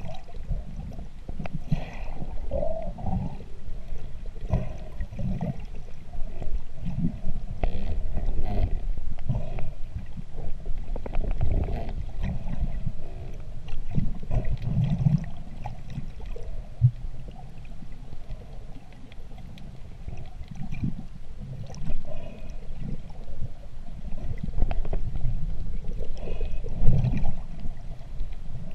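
Muffled underwater water noise picked up by a camera in a waterproof housing: irregular low rumbles and swishes of water moving around it as the diver swims.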